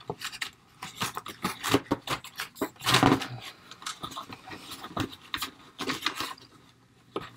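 Small plastic toy accessories clicking and rattling as hands sort through them in a cardboard tray, in irregular light clicks with a louder knock about three seconds in.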